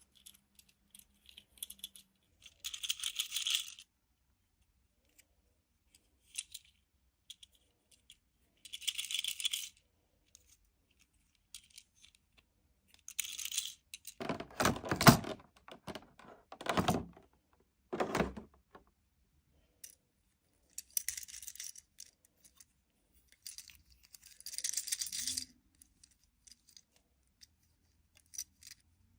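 Toys and their packaging being handled: short bursts of rattling and crinkling every few seconds, with three louder knocking rattles around the middle.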